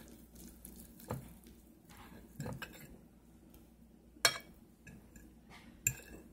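Metal fork clinking and scraping against a plate of rice and gravy, several sharp clicks, the loudest a little past four seconds in.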